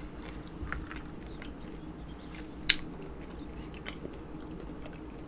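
Close-miked chewing of nuts: soft crunching and small clicks, with one sharp crack about two and a half seconds in.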